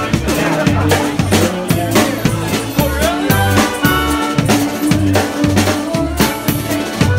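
Live band playing a song loud, its drum kit keeping a steady beat with regular bass drum hits under held pitched instrument lines.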